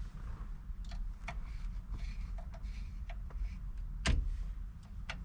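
Light metallic clicks and ticks of small hex bolts on a steering wheel hub being tightened with a 3mm T-handle hex key, with a sharper click about four seconds in, over a steady low hum.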